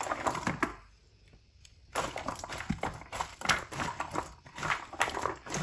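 Raw potato sticks coated in beaten egg being tossed by hand in a wooden bowl: irregular wet clicks and squelches as the sticks rub and tap together, stopping for about a second shortly after the start.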